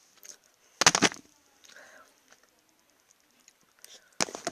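Close-up crunching as Easter chocolate is bitten and snapped, two short loud cracking crunches, about a second in and again near the end, with faint chewing between.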